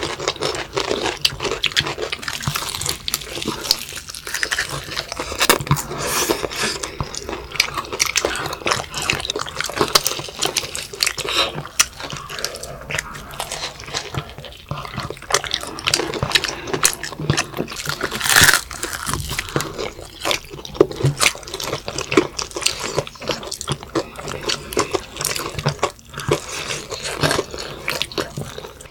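Crispy fried chicken drumstick coating crunching as several children bite and chew, with many small crackly crunches and a louder crunch about eighteen seconds in.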